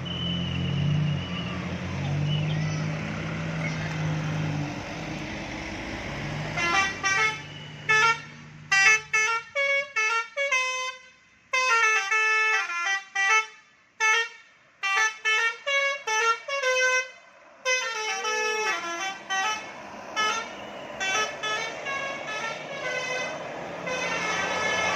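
A bus engine runs with a steady low hum. At about six seconds a bus 'telolet basuri' musical horn starts playing a quick tune of short notes that jump between pitches, for about twelve seconds. Fainter horn notes follow over road noise near the end.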